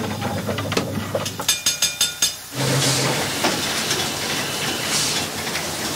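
A quick run of about six ringing metallic clanks from a ship's engine-order telegraph being swung. About two and a half seconds in, a steam engine starts running with a steady hiss and a mechanical clatter.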